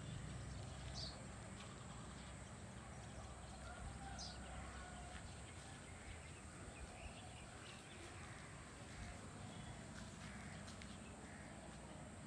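Faint outdoor ambience: a low steady hum with a few short, high bird chirps, one about a second in and another about four seconds in, and scattered faint ticks.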